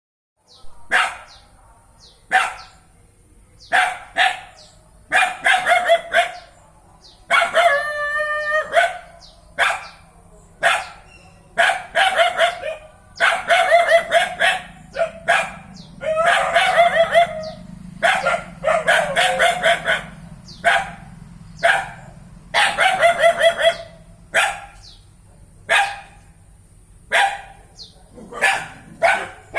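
Dog barking: short sharp barks mixed with longer, drawn-out pitched calls that waver in pitch, coming every second or two.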